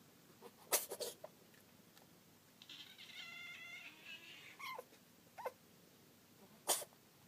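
Small black cat sneezing: a quick cluster of sharp sneezes about a second in and a single sneeze near the end, with a thin, drawn-out mew between them.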